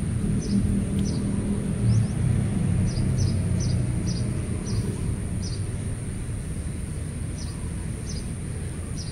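Outdoor ambience: a steady low rumble under short, high bird chirps that repeat irregularly a few times a second, with a faint steady high whine above.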